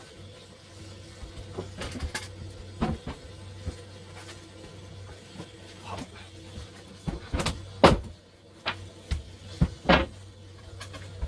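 Irregular knocks and clanks of old metal pipework being cut out and pulled free by hand, over a steady low hum. The loudest knocks come about seven and a half, eight and ten seconds in.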